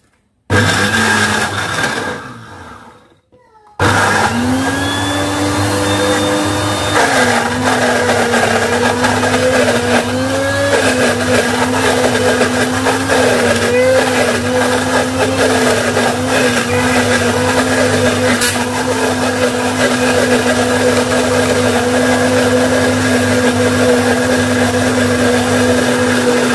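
Electric blender's motor grinding shallots, garlic, ginger and lemongrass to a paste with no water added. A short pulse starts about half a second in and winds down; then the motor starts again about four seconds in and runs steadily. Its pitch steps down once about seven seconds in and wavers slightly after that.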